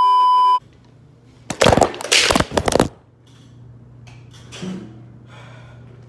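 A steady, high test-pattern beep that cuts off about half a second in. About a second and a half in comes a loud, harsh burst of noise lasting over a second, then a faint low hum with a few soft sounds.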